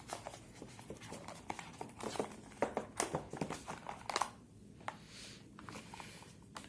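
Hands handling a phone charger and its USB Type-C cable from the box: a run of small clicks and crinkles, thinning out after about four seconds.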